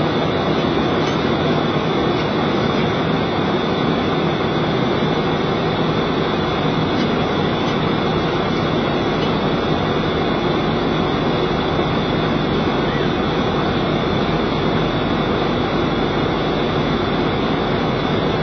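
Boeing 737 flight-deck noise in flight: a steady, unbroken rush of airflow and engine noise, with a thin steady high tone over it.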